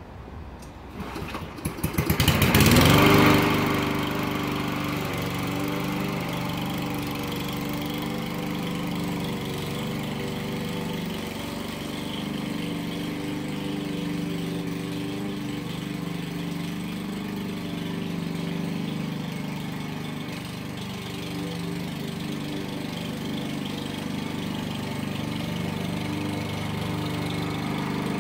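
Small gasoline engine of a walk-behind lawn mower being pull-started: it sputters for a moment, catches about two seconds in with a quick rise in pitch, then runs steadily while cutting grass, its note wavering slightly.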